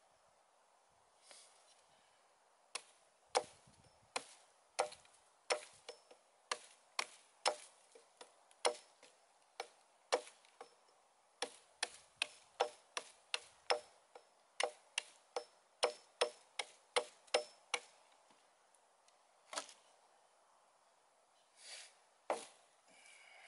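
Sharp, regular knocks of a small hatchet chopping into dead sticks, about two a second for some fifteen seconds, then a few scattered strokes near the end.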